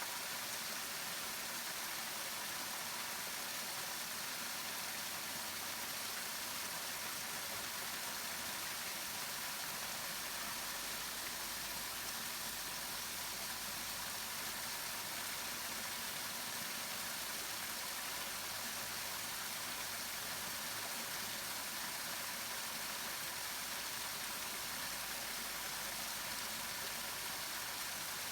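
Waterfall: a steady rush of falling water, even and unbroken, with a faint low rumble joining about ten seconds in.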